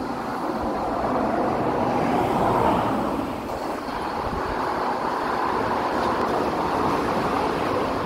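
Highway traffic: cars passing below on the road, a steady rush of tyre and engine noise that swells as one passes about two and a half seconds in.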